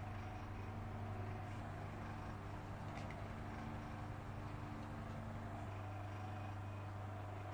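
Steady low hum with a faint hiss behind it, and a single light click about three seconds in.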